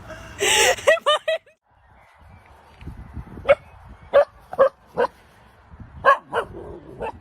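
A dog gives a brief high whine. After a short break, a dog barks in short sharp barks, about seven of them over four seconds.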